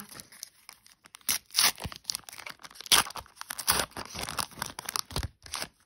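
Wrapper of a Panini Adrenalyn XL trading-card packet being torn open and crinkled by hand: a run of irregular rips and crackles that stops just before the end.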